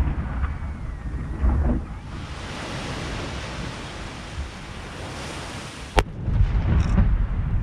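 Aerial firework shells over the sea: a dull thump about a second and a half in, then one sharp, loud bang of a shell bursting about six seconds in, followed by a low rolling rumble. A steady hiss of surf and wind runs underneath.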